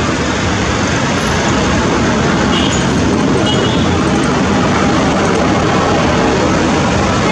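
Twin-turboprop ATR airliner's engines and propellers running at takeoff power during its takeoff roll, a loud steady rush that grows a little louder about two seconds in.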